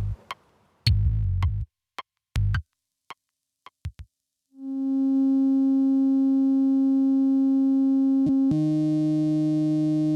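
Lorre-Mill Double Knot V2 synthesizer: a few short, low percussive hits and clicks with silent gaps, then a steady held tone from about halfway, which changes to a lower, thicker two-note sound near the end.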